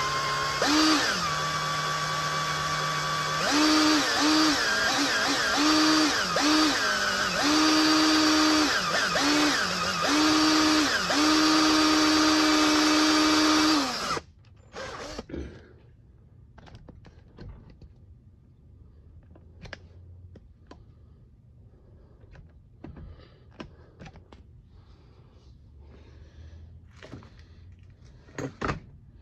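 Cordless drill boring out the remains of a broken steel thumb screw in a bandsaw blade guide, nearly through. The motor speeds up and slows again and again as the trigger is feathered, then stops suddenly about halfway. Light clicks and handling knocks follow.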